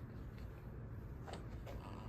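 Low steady room rumble with a few faint rustles and clicks about a second and a half in.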